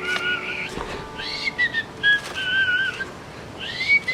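A person whistling a tune: a string of short notes with upward slides and slightly wavering held notes. There is a single click about a second in.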